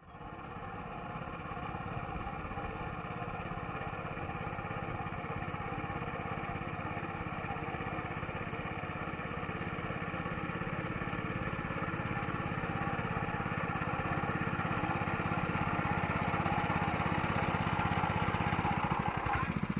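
Small engine of a rice transplanter running steadily with a fast even putter, slowly growing louder.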